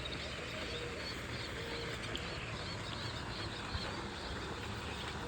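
Faint, repeated short chirping animal calls over a steady background hiss.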